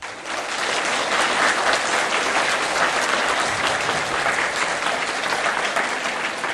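Audience applauding, breaking out suddenly and holding steady as the demonstrator bows and rises at the end of the performance.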